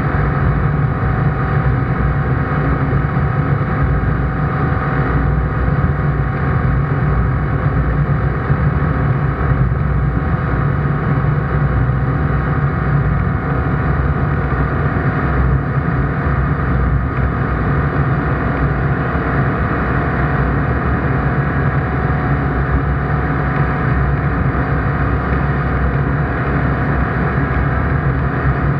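ICP Bingo ultralight's engine and propeller running steadily at cruise, heard from inside the cockpit.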